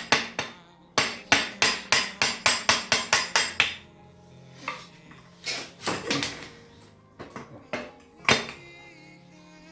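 Rapid hammer blows on metal, struck through a separate piece used as a drift to knock out a motorcycle clutch-side part, about four a second for the first few seconds. After that come a few scattered metallic knocks and clinks.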